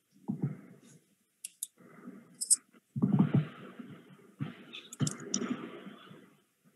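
A scattering of sharp clicks among muffled rustling and knocking noises, picked up in short bursts by a video-call microphone.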